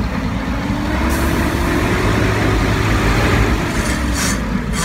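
Large truck's diesel engine heard from inside the cab, its pitch rising and then falling back as it is revved and eased off. A hiss comes in about a second in, with short sharper hisses near the end.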